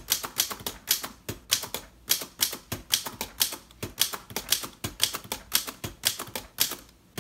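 A 1928 Underwood Portable three-bank typewriter being typed on at a quick, steady pace: a run of sharp clacks, about three to four keystrokes a second, as the typebars strike the platen. The typing stops shortly before the end.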